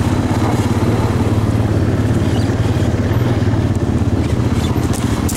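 Four-wheeler ATV engine running steadily under way on a dirt trail, a low, even drone.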